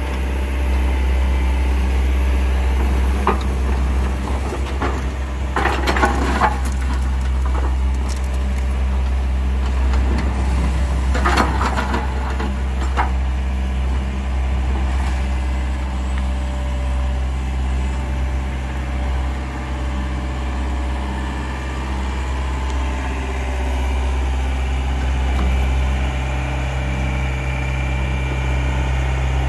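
Amphibious excavator's diesel engine running steadily with a deep, even hum as the machine works its pontoon tracks off the bank and into the water. Two short noisy bursts stand out, about six and about eleven seconds in.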